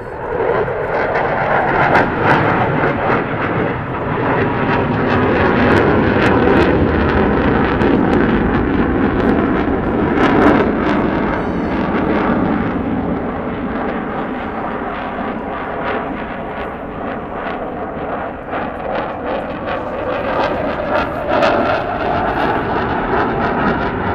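Eurofighter Typhoon's twin EJ200 turbofan jet engines, a continuous loud roar as the jet flies its display, swelling through the middle of the pass and easing a little later on.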